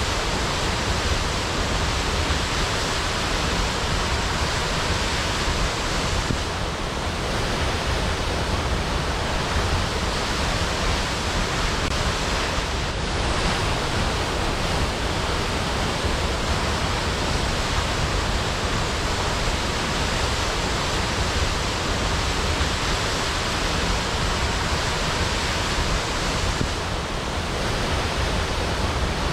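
Waterfall: a steady rush of falling water, an even hiss across low and high pitches with no breaks.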